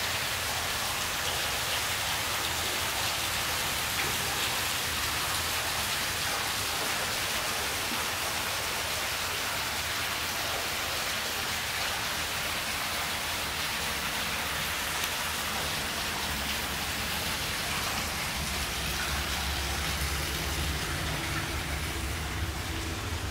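A steady rushing hiss throughout, with a low rumble coming in near the end.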